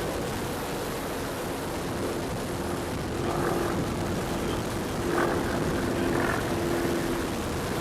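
Engine drone of a full-scale propeller airplane flying overhead, a steady hum that grows louder about three seconds in. It is loud, unlike the quiet electric RC model flying nearby.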